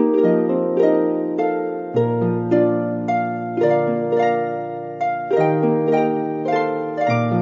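Calm instrumental background music: a flowing run of plucked notes, each struck and fading, over low bass notes, with a deeper bass note coming in about two seconds in and again near the end.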